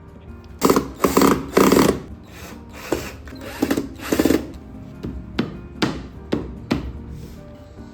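Tool noises from assembling furniture: several short, loud bursts in the first half, then four sharp knocks about half a second apart, over soft background music.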